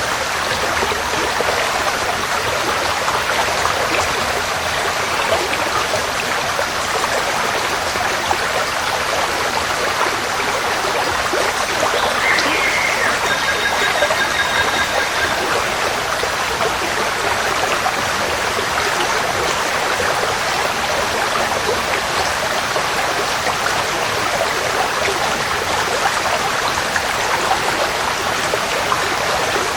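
Forest stream flowing steadily, a constant rush of running water. A bird calls briefly about halfway through.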